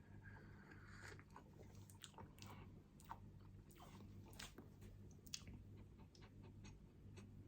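Near silence with faint soft clicks and mouth sounds as a freshly pulled, still hot espresso is sipped and tasted.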